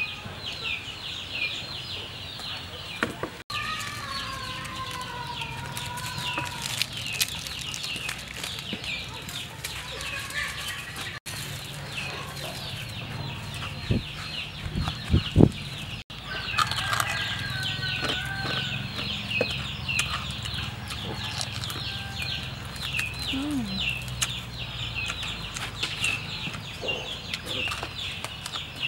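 Chickens: a constant rapid series of high, falling peeps, with lower clucking calls here and there. A few sharp knocks sound about halfway through.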